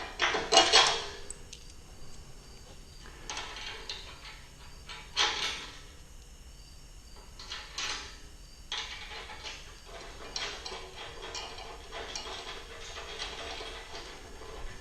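Intermittent clanks and scraping of metal parts being handled, with the loudest knocks about half a second in and again around five seconds in, and lighter scraping through the second half.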